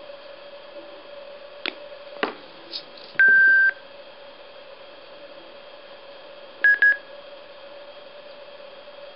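Electronic beeps from an X-Mini KAI portable Bluetooth speaker: a few clicks, then one half-second beep about three seconds in, and two short beeps at the same pitch near seven seconds. A steady hum runs underneath.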